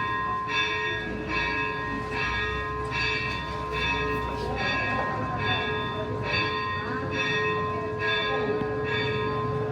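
A bell ringing in evenly spaced strokes, about three every two seconds, each stroke ringing on over a steady held tone and a low rumble.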